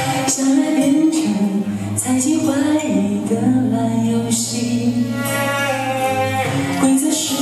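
A Mandarin pop ballad sung live into a handheld microphone, with long held notes that move slowly over a steady bass line and light cymbal hits in the instrumental accompaniment.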